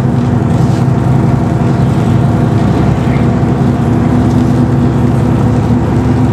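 Vehicle engine running steadily at cruising speed, heard from inside the cab, over the hiss of tyres on a wet road.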